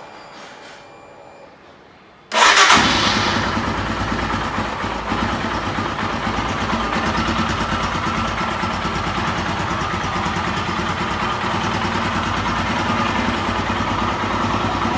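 The Royal Enfield Himalayan's 411 cc single-cylinder engine starts on the electric starter a little over two seconds in, catching at once, then idles steadily with an even pulse. A quick catch on the button shows the freshly fitted battery has the power the old, flat one lacked.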